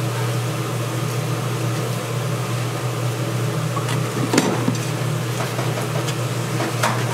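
Steady low mechanical hum, with one sharp clink about four and a half seconds in and a few lighter ticks near the end.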